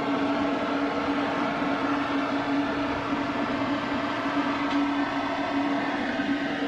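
Farm machinery running steadily: an even mechanical hum with one strong steady tone over a low rumble.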